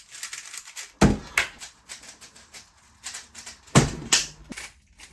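A 3x3 speedcube being turned fast, a dense run of clicking, with two louder thumps about a second in and near the end.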